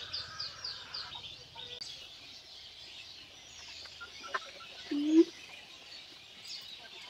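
Small birds chirping in quick, repeated high notes, about four a second, fading out after the first second. About five seconds in comes a single short, loud, low call.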